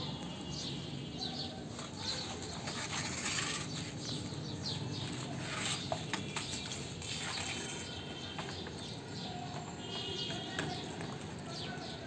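Small birds chirping in the background, short high calls scattered throughout, with a few light knocks and rustles from plastic toy trucks and foam pieces being handled.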